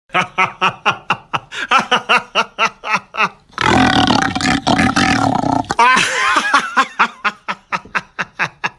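A man laughing in a quick, pulsing run, then roaring into a cardboard tube for about two seconds in imitation of a lion, then laughing again.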